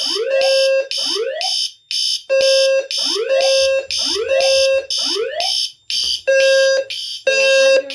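Fire alarm evacuation signals sounding in the three-pulse temporal pattern: three short, steady low-pitched blasts, then a pause, repeating about every four seconds. Repeated rising whoop sweeps overlap the blasts.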